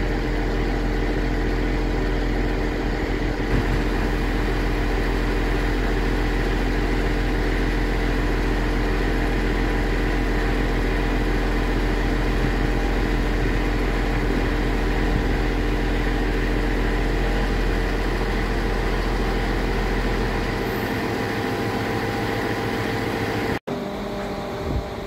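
Scania G490 truck's engine running with the Fassi F990 crane's hydraulics working: a steady drone with several fixed tones. The deepest part of the drone drops away about 21 seconds in, and the sound breaks off for an instant near the end.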